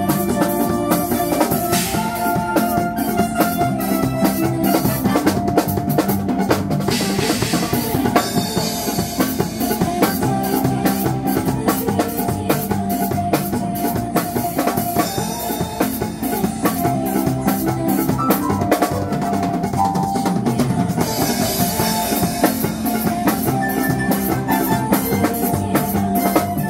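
Music with a drum kit playing a busy beat, snare and bass drum prominent, over held melodic tones.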